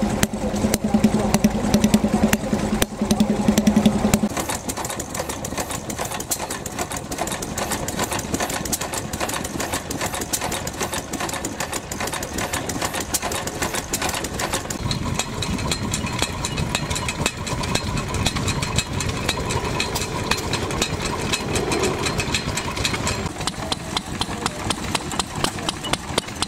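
Vintage stationary engines running one after another. First a small Lister D type engine runs fast with a steady low note. About four seconds in it switches abruptly to a larger flywheel engine's quick, regular beat of clicks and firing, with another change in the engine sound about fifteen seconds in.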